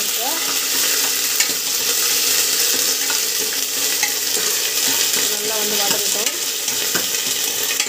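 Hot oil sizzling and spluttering in a pressure cooker while a spoon stirs the frying mixture, with the spoon now and then clicking against the pot.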